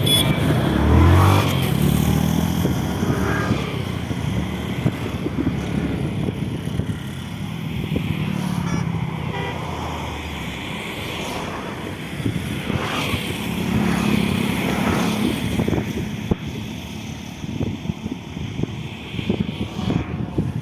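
A motor engine running, its pitch rising about a second in and swelling again twice later, with wind buffeting the microphone.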